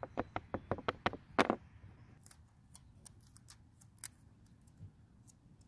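Light clicks and taps of a small metal chainsaw carburetor cover plate being handled on a wooden board: about half a dozen quick taps in the first second and a half, then fainter scattered clicks as the pump diaphragm is lifted off and handled.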